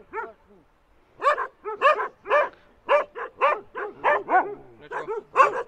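A dog barking: one short bark at the start, a brief pause, then a steady run of barks about two a second.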